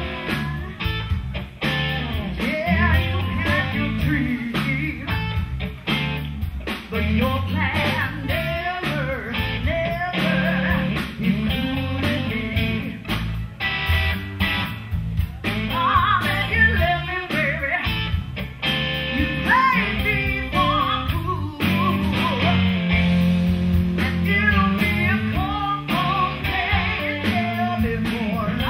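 Live blues-rock band playing: electric guitar over bass and drums, with singing at times.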